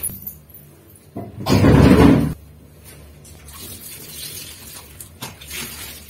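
A soaked, heavy blanket being gathered up off a tiled bathroom floor, with one loud, muffled wet rush lasting about a second, then quieter handling noise and a single click near the end.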